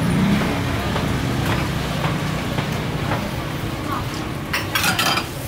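Street-market ambience: a steady low engine rumble from road traffic with people talking, and a brief clatter near the end.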